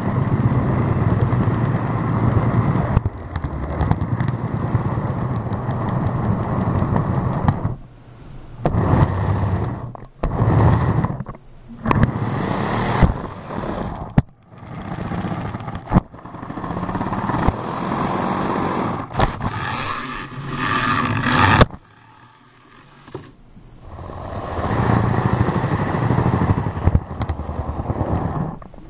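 Model train running along its track, heard from a camera riding on board: a steady rumble of wheels and motor with clicks at the rail joints. The running sound drops away briefly several times.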